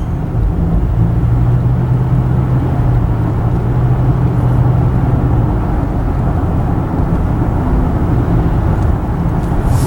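Car driving along a road, heard from inside the cabin: steady tyre and engine rumble, with a low drone that holds from about a second in and fades about five and a half seconds in.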